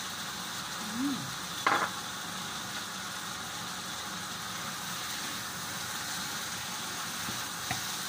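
Chicken curry sizzling steadily in a frying pan as it is stirred with a wooden spatula. A sharp clink just before the two-second mark is the loudest moment.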